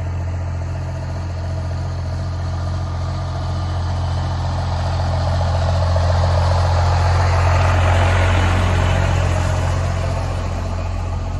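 Engine idling steadily, with a hissing, rushing noise that swells to a peak about eight seconds in and then eases.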